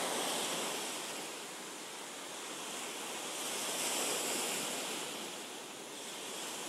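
Ocean surf washing in: a steady rush of noise that swells and ebbs, peaking about four seconds in.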